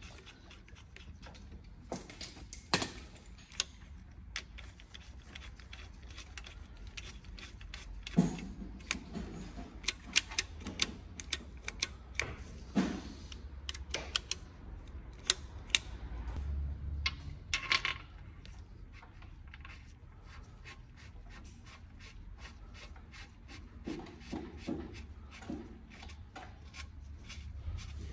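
Timing-chain links on an Audi 2.0 engine clinking and rattling as the balance shaft chain is fitted by hand over its sprockets and guides. There are scattered light clicks, a few sharper clacks and rubbing of gloved hands on the chain.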